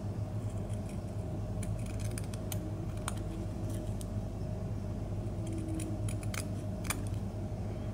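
Steel scissors cutting through hard felt: irregular small crisp snips as the blades close, trimming the lower felt layer close to the stitching.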